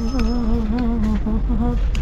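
A person's voice holds a wavering, sung tone, like humming, for most of two seconds, breaking off briefly twice near the end, over a steady low rumble.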